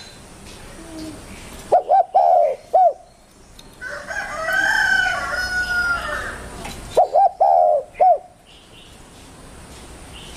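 Spotted dove (tekukur) cooing: a group of short arched coos about two seconds in, repeated about seven seconds in. Between them comes a longer, drawn-out call at a higher pitch.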